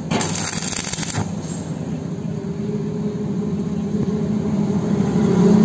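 Stick arc welder striking an arc for a short tack weld on sheet steel: about a second of crackling hiss that stops abruptly. Then a steady low hum with two held tones, the start of background music, grows louder toward the end.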